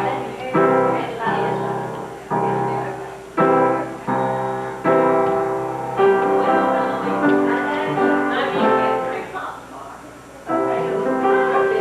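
Piano music: slow chords struck about once a second, each left to ring and fade.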